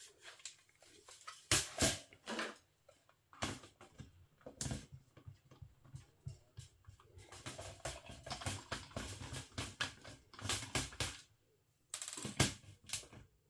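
Irregular clicks, knocks and rattles of a small plastic fly zapper being handled, in scattered clusters with the loudest near the end.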